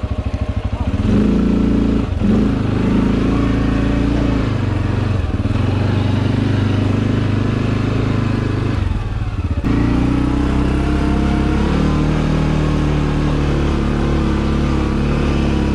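CFMoto 450L ATV's single-cylinder engine running on a trail ride, its pitch shifting with the throttle: it picks up about a second in, drops off briefly about nine and a half seconds in, then pulls again.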